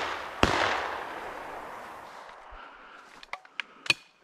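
Shotgun shot about half a second in, its echo rolling away over about a second and a half, right after more shots just before. A few sharp clicks follow near the end.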